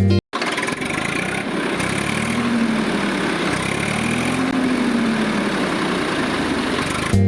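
Small motor of a DIY mini tractor running steadily, its pitch rising and falling twice.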